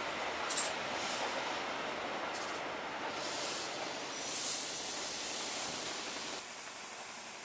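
An LNER K4 steam locomotive and its coaches roll slowly along a station platform, with two brief high squeaks from the running gear. From about three seconds in, escaping steam hisses from the locomotive, loudest around four and a half seconds in, and then carries on steadily.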